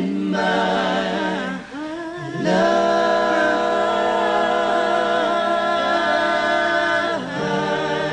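Voices singing a cappella in harmony: a short phrase, a brief dip about two seconds in, then one long held chord that lets go near the end.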